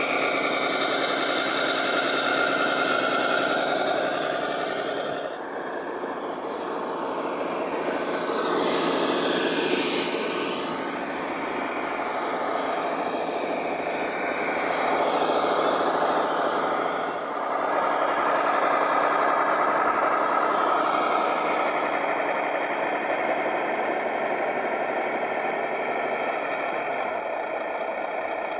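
Electric motor and gearbox of a 1:12 scale 6x6 RC truck (King Kong RC CA30 chassis) whining steadily as it crawls over dirt, the level dipping briefly a couple of times.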